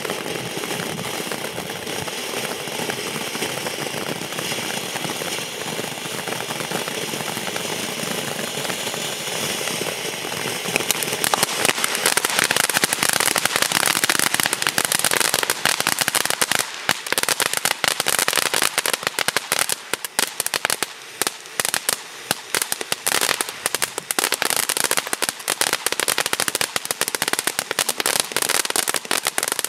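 Nico 'I Love Unicorns' fountain firework battery burning: at first a steady hissing spray of sparks, then about eleven seconds in it turns louder into a dense, rapid crackling that goes on to the end.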